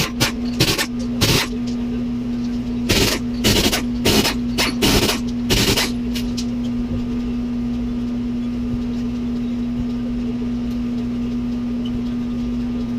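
Pneumatic impact wrench rattling in about nine short bursts over the first six seconds, loosening the wheel's lug nuts. A steady low hum runs underneath.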